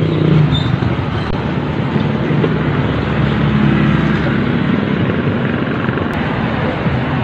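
Motor scooter engine running steadily, its low hum shifting slightly in pitch as the engine speed changes.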